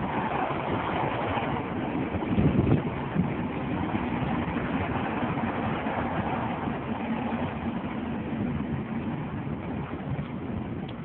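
Car driving through city streets, heard from inside the cabin: steady engine and road noise, with a brief louder rumble about two and a half seconds in.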